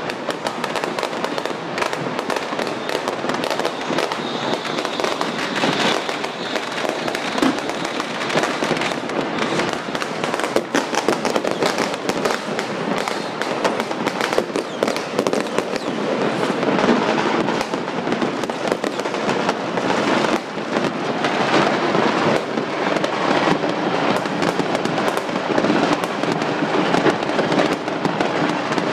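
Firecrackers and fireworks going off all around in an unbroken barrage, countless overlapping pops, cracks and bangs, some close and some farther off.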